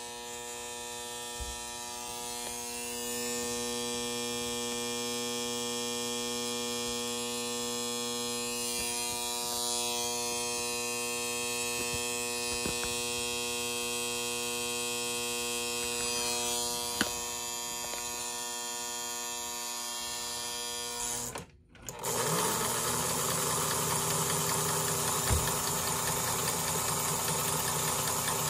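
Lionel 773 Hudson toy steam locomotive's electric motor running on the test bench with the wheels turning freely: a steady motor hum. It cuts off abruptly about 21 seconds in, then picks up again louder and rougher.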